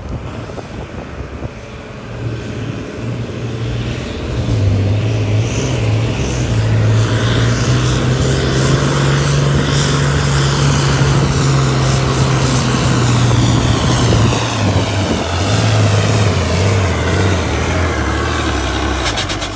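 International Harvester 1066 farm tractor's turbocharged six-cylinder diesel running flat out under heavy load as it drags a weight-transfer sled down a pulling track. It gets louder over the first few seconds, holds a steady strained note, and drops off suddenly near the end.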